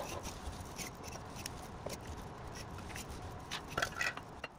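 Bimanual ALOHA robot arms at work: a steady low hum and hiss with scattered small clicks and rustles from the grippers and the cloth and objects they handle, with a sharper click at the very start.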